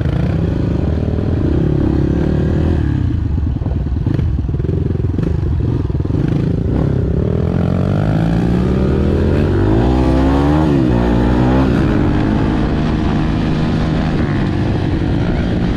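Kawasaki KLX150 trail bike's single-cylinder four-stroke engine pulling away on a dirt road. It revs up and eases off through the gears, with the pitch rising and falling most clearly about eight to twelve seconds in.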